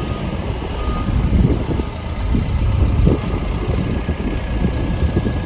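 Road traffic on a busy street, a loud low rumble of engines and tyres.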